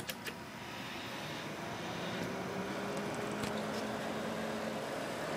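Desktop computer powering up: a few clicks at the start, then its fans spin up into a whir that grows louder over the first two seconds and settles into a steady hum. This time the machine does start, despite its fault of often refusing to turn on.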